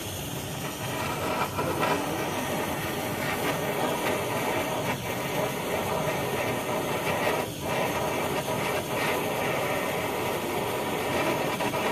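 Handheld butane kitchen blowtorch burning with a steady hissing flame.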